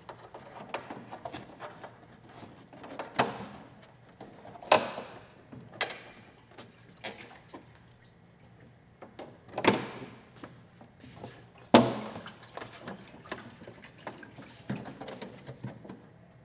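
Fiberglass race bodywork panel being handled and pushed into place on a motorcycle, its tabs going into rubber grommets: irregular knocks, taps and rubbing, with a few sharper knocks standing out.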